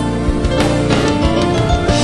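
Instrumental background music with held notes over a bass line.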